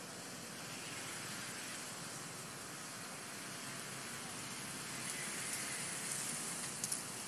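Steady outdoor background hiss, with two faint clicks shortly before the end.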